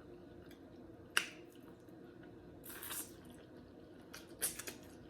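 Eating sounds from a bowl of seafood gumbo: a few sharp clicks of a spoon and a short wet slurping sound near the middle.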